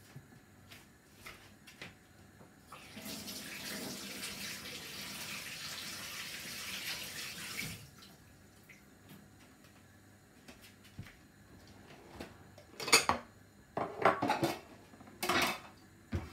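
Kitchen tap running for about five seconds, starting about three seconds in and stopping abruptly. Near the end come several sharp knocks and clinks of crockery set down on the worktop.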